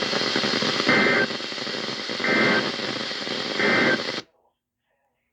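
EAS end-of-message data bursts: three short two-tone digital warbles about 1.3 s apart over a steady radio hiss. The hiss and tones cut off abruptly about four seconds in.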